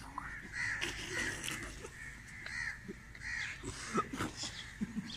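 Crows cawing in a series of short, harsh calls, under a second apart.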